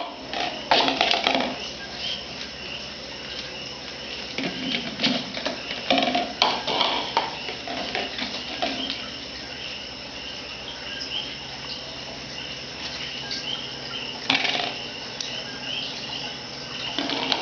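Light knocks and clatter from a pet's food bowl being pushed about on a tiled floor, in scattered bunches, with insects chirping steadily in the background.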